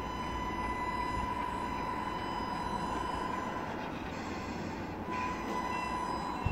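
Tamiya Scania RC truck driving: a steady whine from its electric drive motor and gearbox, with one held high tone that breaks off for about a second partway through.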